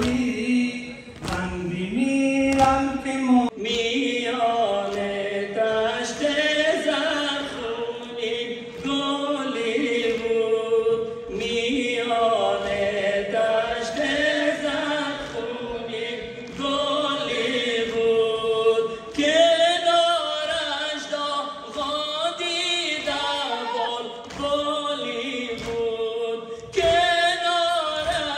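Voices chanting a nauha, a Shia Muharram lament for Imam Husayn, in long held notes that waver up and down.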